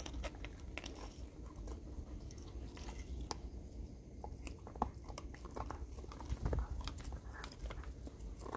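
A dog gnawing a hard pork bone held between its front paws, teeth crunching and cracking on the bone in irregular sharp clicks.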